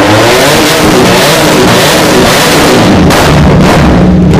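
Benelli Leoncino 500's inline-twin engine revved hard through an aftermarket exhaust, very loud, its pitch rising and falling with the throttle.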